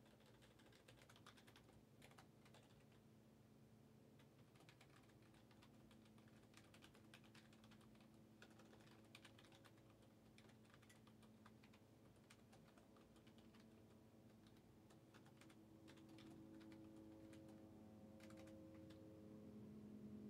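Faint typing on a computer keyboard: irregular key clicks throughout, over a low steady hum.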